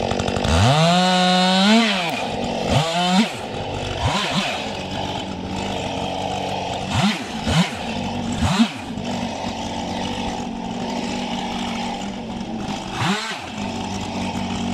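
Two-stroke chainsaw running at idle, its throttle revved up and let back down six times; the longest rev comes about half a second in and lasts over a second, and the others are short blips.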